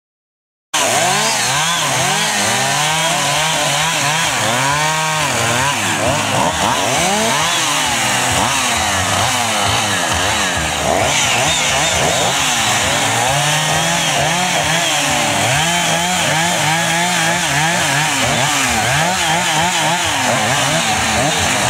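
Chainsaw running and being revved up and down over and over, its pitch rising and falling throughout. It cuts in suddenly less than a second in.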